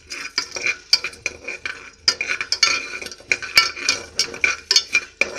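Metal spoon stirring coriander seeds and whole spices as they dry-roast without oil in a pressure cooker: repeated quick scrapes and clinks against the metal pot.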